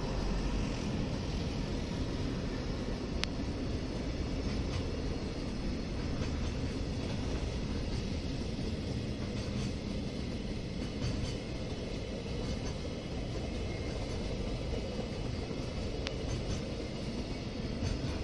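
Container wagons of a freight train rolling past: a steady rumble of steel wheels on rail, with a couple of sharp ticks.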